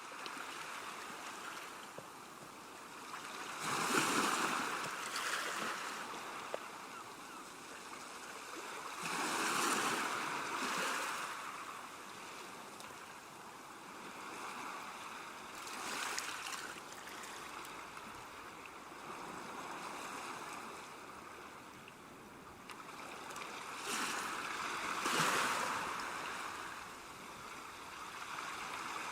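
Sea waves washing onto a shore, a steady wash of surf that swells into louder breaking waves about every six seconds.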